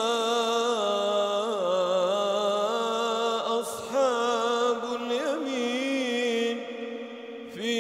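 A man's voice chanting the Quran in melodic tajweed style, in long drawn-out, ornamented notes, with a short break about halfway through.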